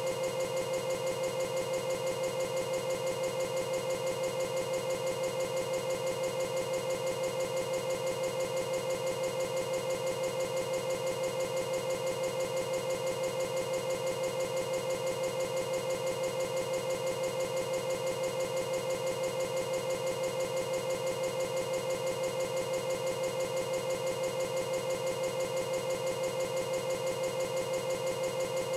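Steady, fast-pulsing buzz with a strong hum near 500 Hz, the same tiny fragment repeating over and over without change: corrupted digital audio from a damaged video file, stuck in a loop.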